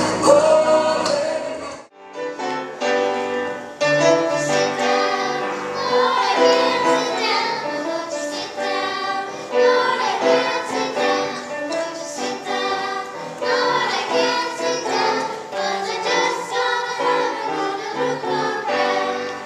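Music with a choir singing. A sudden break about two seconds in leads into a different passage.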